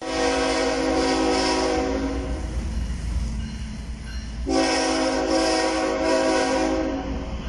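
Diesel locomotive's multi-tone air horn sounding two long blasts as the train approaches, the second starting about four and a half seconds in, over a low rumble.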